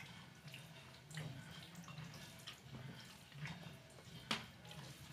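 Wet mouth sounds of a person eating rice and dal: soft chewing and lip smacks as scattered small clicks, with a sharper smack about four seconds in.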